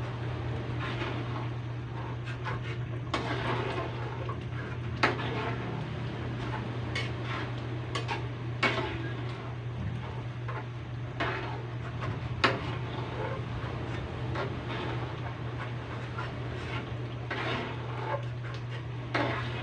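Metal spatula scraping and clinking against a metal pan as it presses through and cuts soft glass noodles in broth. There are a few sharper clinks of metal on metal, over a steady low hum.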